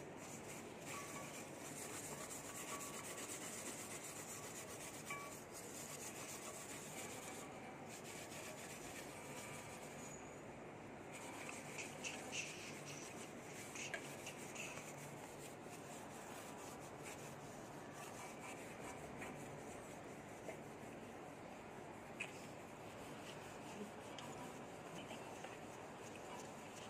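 Faint steady rubbing as sacred ash (vibhuti) is worked over a brass oil lamp by hand with tissue, the polishing step that first whitens the metal. A few light clicks and taps of the lamp being handled come through it.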